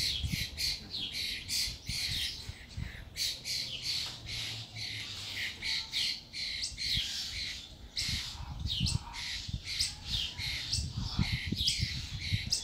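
Many birds squawking in harsh, short calls, one after another without a break, the alarm-like clamour of birds stirred up by a fight between two of them.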